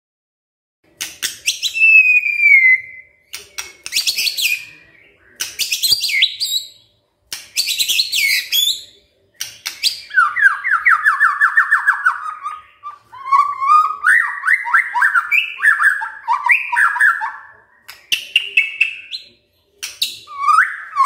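White-rumped shama singing loudly in varied phrases with short pauses, starting about a second in: harsh rattling bursts and whistled notes at first, then long, rapid trills of repeated notes from about ten seconds in.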